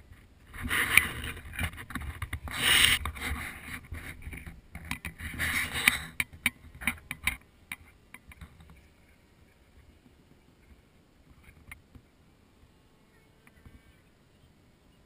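Gusty rumbling and rustling noise on the camera's microphone with scattered clicks, dying away about eight seconds in to a faint background with a few weak high chirps.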